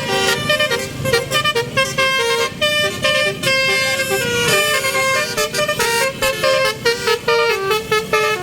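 A bus's basuri "telolet" multi-tone horn playing a fast tune, its notes changing several times a second, over a low rumble of road noise.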